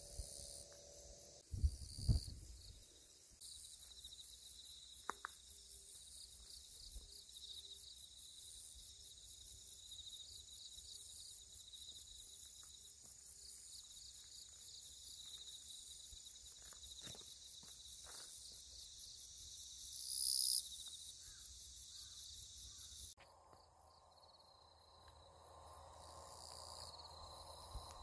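Insects chirping in the grass, a steady fast rhythm of high chirps. It changes abruptly about 23 seconds in to a quieter, less rhythmic insect sound. A couple of soft knocks about two seconds in.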